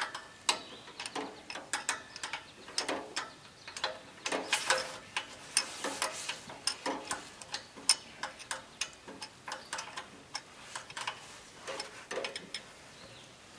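Hand wrench clicking and clinking on the carburetor mounting bolts of an International 240 tractor's engine, which are being backed off a little at a time, in quick irregular metallic clicks. The clicking stops near the end.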